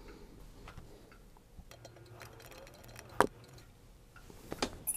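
Small metallic clicks and ticks from parts of a Rossi R92 lever-action rifle's receiver as a cartridge guide is worked loose, with one sharper click about three seconds in and another near the end.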